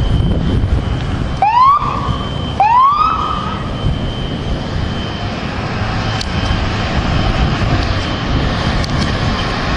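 Fire truck siren giving two short rising whoops about a second apart, over a steady low rumble of engines and traffic.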